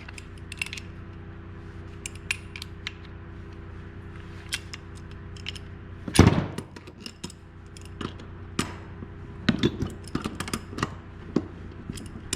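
Metal hand tools clicking and knocking as a puller is fitted under a chainsaw crankshaft bearing, with one louder knock about six seconds in, over a steady low hum.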